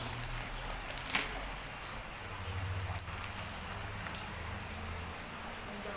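Freshly caught tilapia flopping in a nylon net on river stones: a patter of small wet slaps and clicks, with a sharper knock near the start and another about a second in. A low rumble runs for a few seconds in the middle.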